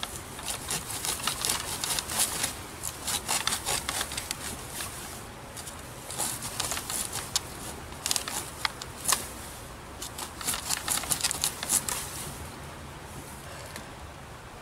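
Saw-toothed spine of a Camillus Carnivore Inject machete sawing back and forth through a wet dead branch, in three runs of quick strokes with short pauses between.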